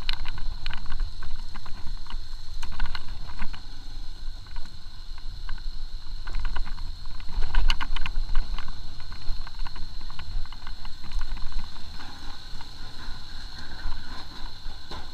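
Motorcycle riding over a rough, broken road: a low rumble of engine and wind with clusters of rattling knocks as the bike jolts over bumps, the heaviest near the start and about eight seconds in. A thin, steady high tone runs underneath.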